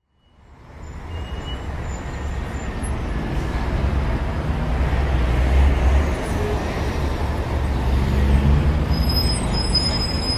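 Motor vehicle and road traffic noise with a heavy low rumble, fading in from silence just after the start.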